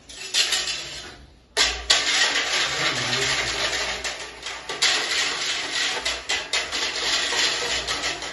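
A metal wire whisk is stirring F-75 therapeutic milk powder into water in a stainless steel pot, its wires scraping and clicking against the metal. After a short first stir and a brief pause about a second in, the whisking runs on without a break.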